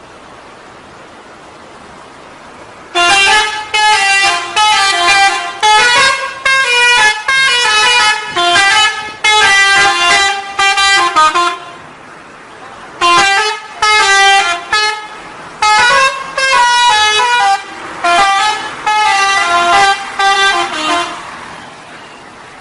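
A bus 'telolet' horn, a multi-tone musical horn, plays a quick tune of short notes in two long runs of about eight seconds each, with a brief pause between them. It sounds over steady background noise.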